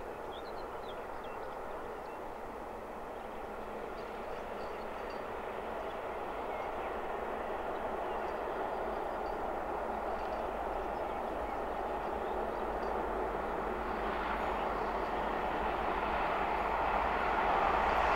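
LMS Jubilee class three-cylinder 4-6-0 steam locomotive 45596 'Bahamas' and its coaches approaching at speed on the main line, a steady running noise that grows louder as the train nears, rising most near the end.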